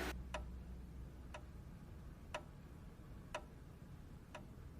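A clock ticking faintly, one tick every second, evenly spaced.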